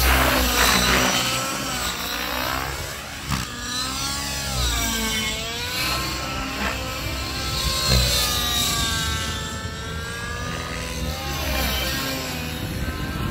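Radio-controlled helicopter flying 3D aerobatics. Its rotor and motor whine sweeps up and down in pitch as it flips and passes overhead, over a low rumble of wind on the microphone.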